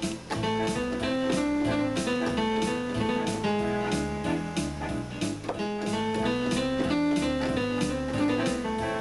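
Digital arranger keyboard playing a fast auto-accompaniment style, with a steady drum beat, bass and guitar-like chords, under a melody played on the keys. It is heard through the computer's line input, which lags noticeably behind the keys: too much delay to play to.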